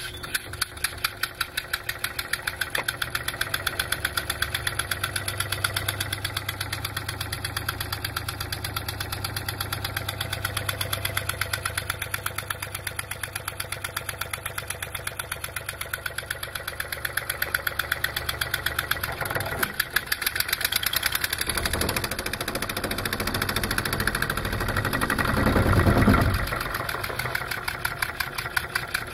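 Homemade three-cylinder, single-acting pneumatic engine with a rotary valve, running on compressed air, its exhaust puffing in a fast, even rhythm. A deeper rumble swells in during the last third, loudest near the end.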